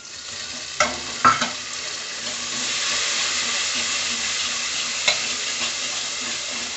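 Chopped tomatoes, green chilli and coriander sizzling as they hit hot mustard oil and browned onions in a pressure cooker, with two sharp knocks against the pot about a second in. The sizzle swells about two seconds in and stays loud and steady, with one more knock near the end.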